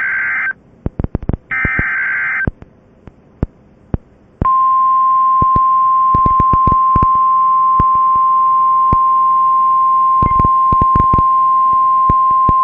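Emergency alert data tones: two short raspy end-of-message data bursts, then, about four and a half seconds in, the weather radio's single steady 1050 Hz warning alarm tone starts and holds. Sharp static clicks crackle throughout.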